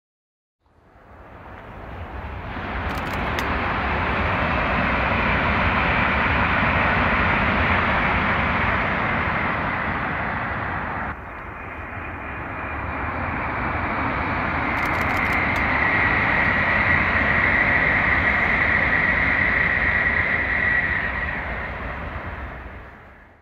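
Tokaido Shinkansen high-speed train passing at speed on the line's viaduct: a loud rushing roar that swells and fades. It is broken by an abrupt cut about eleven seconds in, then swells again with a steady high whine before dying away near the end.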